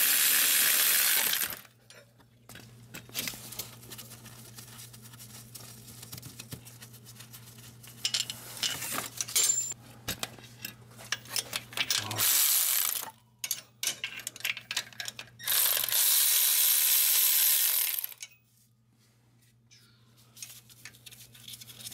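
A power wrench spinning bolts out in three bursts: one at the start, one about halfway, and a longer one about three-quarters in. In between, tools and loose bolts click and clink, over a steady low hum.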